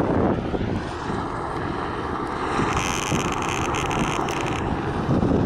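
Wind buffeting the microphone, with the distant drone of a police helicopter circling overhead; a higher hiss joins for about two seconds midway.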